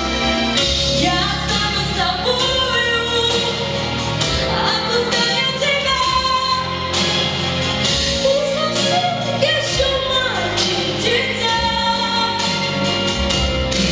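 A young female voice singing a song over instrumental accompaniment, holding and sliding between sustained notes.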